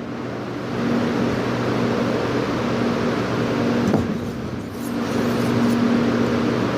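Knife blade being drawn over a coarse diamond sharpening stone in repeated scraping strokes, over a steady low hum.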